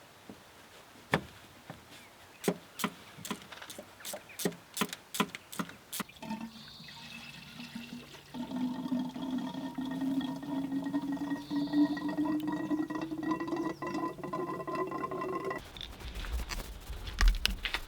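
A string of sharp clicks, then coolant being poured into a Volvo 740's cooling system: a steady pour whose pitch rises slowly as the liquid fills, stopping suddenly about two seconds before the end, followed by a low rumble.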